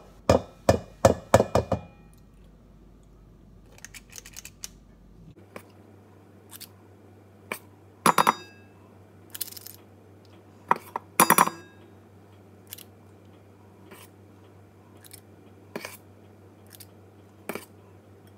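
Small metal batter scoop clicking and clinking against the rim of a stainless steel pot while batter is scooped out. A quick run of sharp clicks at the start is followed by single clicks and clinks every second or so, with louder ones about eight and eleven seconds in.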